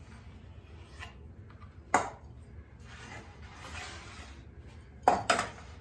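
A metal square handled on pine boards: a sharp knock about two seconds in, a stretch of scraping as it slides across the wood, then two quick knocks near the end.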